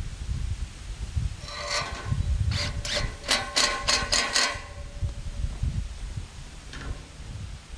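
A hammer striking, about seven ringing blows in quick succession from roughly one and a half to four and a half seconds in, with one fainter knock later. A low rumble runs underneath.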